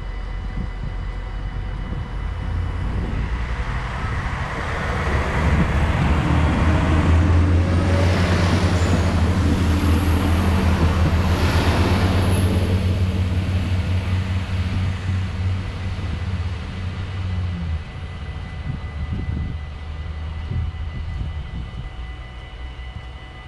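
Alstom Coradia LINT 41 diesel multiple unit approaching and passing close by: a low diesel drone with wheel and rail noise builds, is loudest for about ten seconds in the middle, then fades as the train pulls away.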